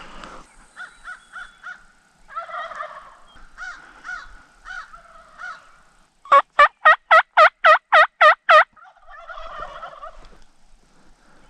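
Distant Merriam's wild turkeys gobbling and calling. Midway comes a loud, close series of about nine evenly spaced turkey yelps, a hunter's turkey call, and a gobble answers it from the ridge just after.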